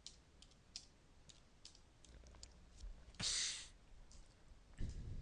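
Computer keyboard keystrokes: scattered single key presses entering debugger commands. About three seconds in there is a short breathy hiss, the loudest sound, and a low thump comes near the end.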